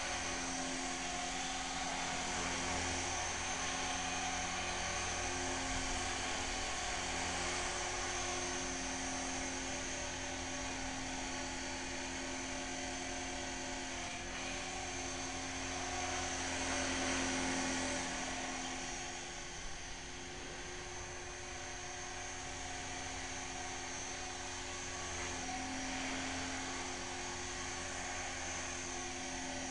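Align T-Rex 450 V2 electric radio-controlled helicopter in flight: a steady high whine from its motor and spinning rotor blades. It swells a little about two-thirds of the way through, then eases off briefly.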